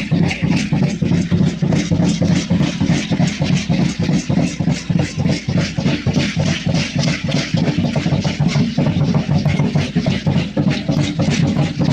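A handmade wind sound artifact played continuously, giving a steady low drone broken into a fast, even pulsing of several pulses a second.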